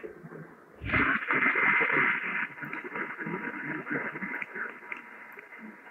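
Off-air radio reception: hiss and static over faint, muffled program audio, with a louder rush of static from about one second to two and a half seconds in.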